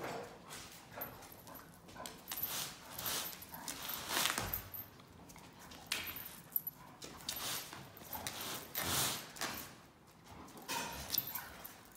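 Labrador and Dobermann puppy playing with a rope toy: scuffling and rustling in a padded dog bed, and claws clicking on a wooden floor, in uneven bursts.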